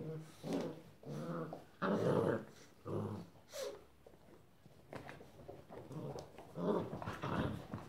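Rhodesian Ridgeback puppies, about six weeks old, growling at each other in play-fighting, in short bursts about half a second long. There is one higher squeal about three and a half seconds in, a quieter stretch after it, and a louder run of growls near the end.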